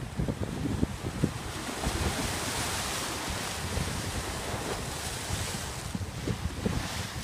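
Sea waves washing against a concrete seawall, a long steady hiss of surf, with gusts of wind rumbling on the microphone in the first second or so and again near the end.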